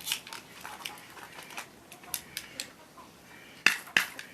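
Stiff plastic wrapper crinkling and crackling as it is worked open by hand, with two louder sharp snaps near the end. The wrapper is hard to open.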